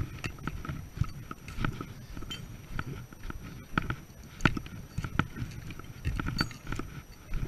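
Footsteps of a walker on a dirt forest trail: irregular thuds and crisp clicks, a few per second, with each stride.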